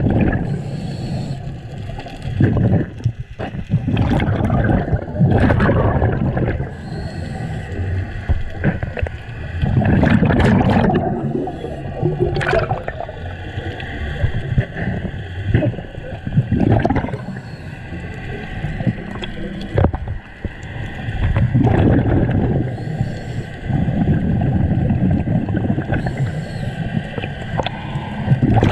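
Scuba diver breathing through a regulator underwater: exhaled bubbles rush and gurgle in loud swells about every five to six seconds, with quieter water noise between breaths.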